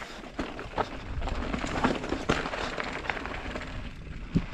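Orbea Occam mountain bike rolling down a narrow dirt and stone trail: tyres crunching over the ground, with scattered clicks and knocks as the bike rattles over bumps.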